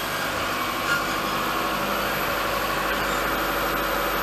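High-mileage (250,000 km) car engine idling steadily, freshly started and still cold at about 13 degrees, warming up before an oil flush. There is one small knock about a second in.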